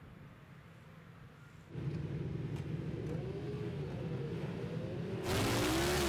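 Superbike motorcycle engines running, with a low rumble and a slowly wavering engine note, coming in under two seconds in; about five seconds in it turns suddenly much louder with a rushing noise.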